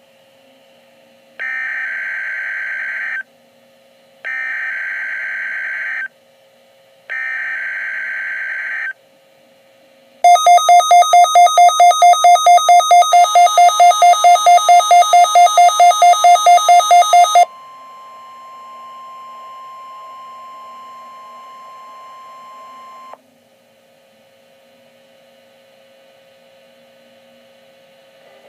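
NOAA Weather Radio EAS test alert: three short bursts of screechy warbling SAME digital header data, then a loud beeping alarm pulsing about four times a second for about seven seconds. A steady 1050 Hz warning tone comes in under the beeps and continues alone until about five seconds before the end, then only low hiss remains.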